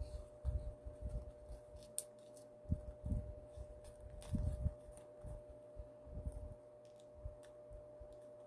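Origami paper being folded and creased by hand: irregular soft rustles and low thumps with a sharp click about two seconds in, over a faint steady hum.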